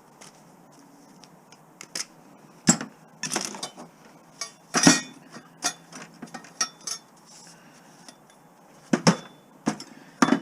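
Cut pieces of scrap metal clinking and clattering against each other as they are handled and dropped: a string of irregular sharp metallic knocks, the loudest about five seconds in.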